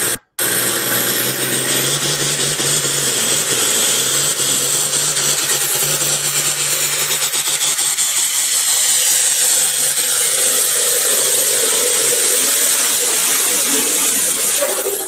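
Pulling tractor's engine running hard under load while pulling the sled down the track: loud, dense engine noise with a steady low drone that drops away about eleven seconds in.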